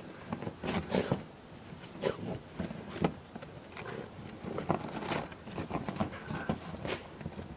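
Dog rolling and scrambling in snow: irregular crunches and scuffs of snow, one every half-second or so.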